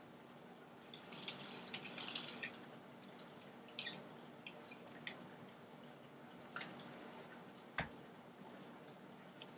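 Quiet room with a few short rustles and scattered light clicks and ticks, the sharpest one near the end.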